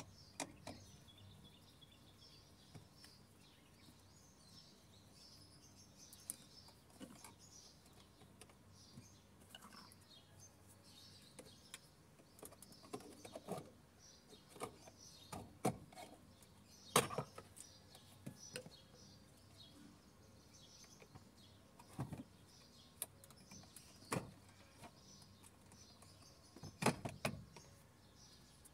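Scattered sharp clicks and knocks of plastic interior trim being pried loose and handled as a 2011 Toyota RAV4's center-console shifter surround is taken apart, with birds chirping faintly in the background.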